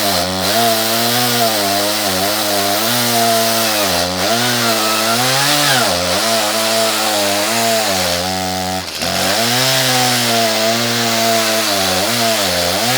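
Ported Echo CS-310 two-stroke chainsaw cutting into an oak stump at full throttle, its pitch sagging and recovering again and again as the chain loads up in the hard wood. About nine seconds in the engine speed drops sharply for a moment before it picks back up.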